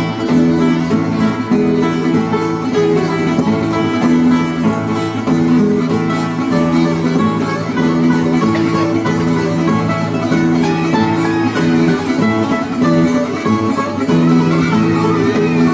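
Two acoustic guitars playing a tarantella together, over steady held low notes.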